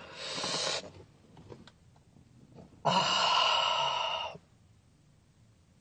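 A man's pained breathing: a short breathy exhale at the start, then a longer breathy sigh about three seconds in, lasting about a second and a half. He is wincing at the sting of peeling a dried pore strip off his nose.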